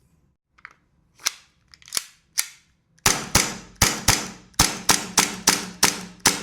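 Hi-Capa gas blowback airsoft pistol firing. Three separate shots come first, then a quick string of about ten shots at roughly three a second, each a sharp crack with a short ring-out.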